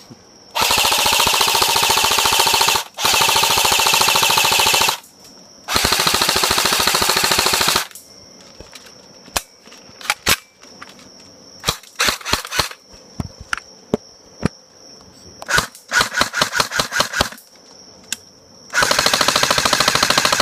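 Airsoft AK-74 rifle firing on full auto: three long bursts of about two seconds each, then single shots and short strings of shots, then another long burst near the end. Crickets chirp steadily underneath.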